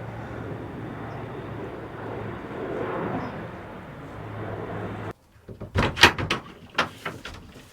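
Aircraft engine noise overhead, a steady drone that swells about three seconds in, from a plane flying over. It cuts off suddenly and is followed by several sharp knocks and clatter, like a door or latch being handled.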